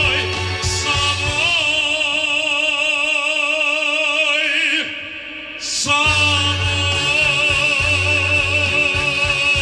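Operatic male baritone singing live with band accompaniment, holding long notes with wide vibrato over a pulsing bass. About five seconds in the voice glides up and breaks off briefly, then takes up another long held note.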